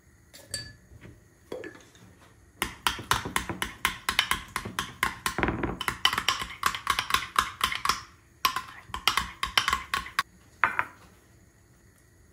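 A metal spoon stirring briskly in a glass bowl of thin white liquid, clinking against the glass about six times a second, with a short break near the middle and one last clink a little later. A few light knocks come before the stirring starts.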